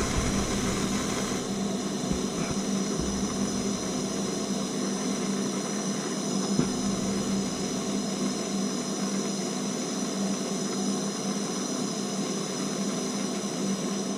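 Steady hum and hiss of a plumber's heating tool running continuously while heating a tub and shower valve's fittings, with a few faint knocks.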